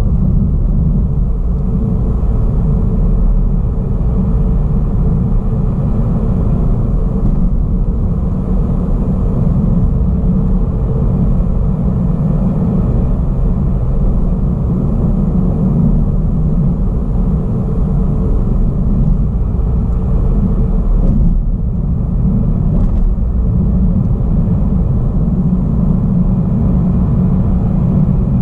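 Car driving at a steady speed on an open road: steady low rumble of engine and tyres heard from inside the cabin.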